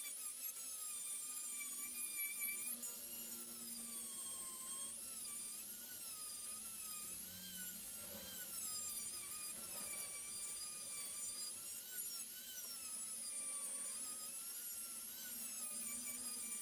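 Handheld rotary tool with a sanding drum grinding the steel claw of a hammer head: a high-pitched motor whine whose pitch wobbles up and down as the drum is pressed into the metal.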